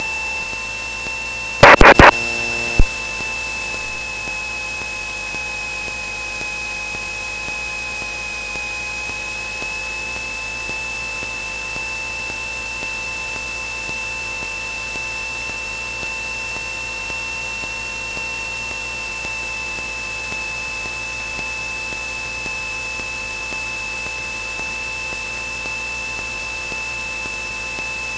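Steady cockpit hiss of a Cessna 172N in flight, with a high steady whine that wavers slightly in pitch. About two seconds in, a short burst of loud clicks, then one more click.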